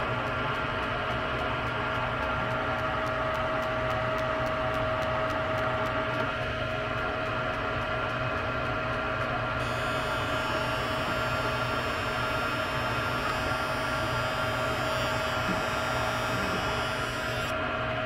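Electronic combustible gas leak detector sniffing the fittings of a newly fitted furnace gas valve: a steady hum, with fast, even ticking through the first half.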